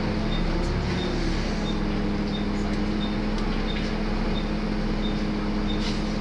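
Volvo B7TL double-decker bus's six-cylinder diesel running steadily, heard from on board as a steady hum with a short low rumble about a second in. A light tick repeats about one and a half times a second throughout.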